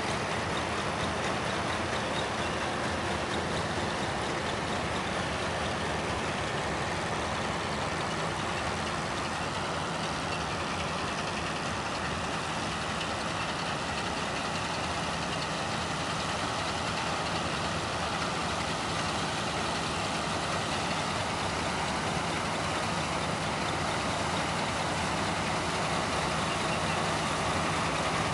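Green tractor and a towed vacuum peat harvester running steadily: an even rushing noise with a low engine hum underneath, unchanging throughout.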